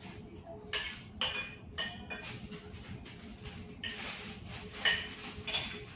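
Cutlery and dishes clinking during a meal: a string of short, sharp clinks, several of them ringing briefly.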